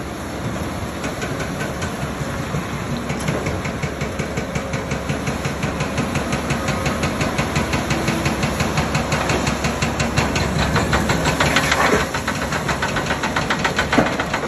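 CAT 395 excavator's diesel engine working under load, a fast even pulse that grows louder as the machine swings. Near the end rock is tipped from the bucket into a dump truck body with a loud clatter.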